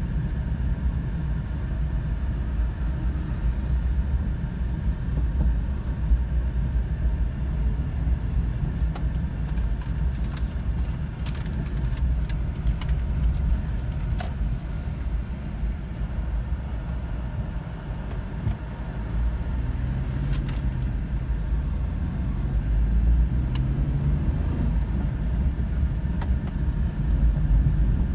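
Steady low rumble of a car's engine and tyres heard from inside the moving car, with a few light clicks and rattles around the middle.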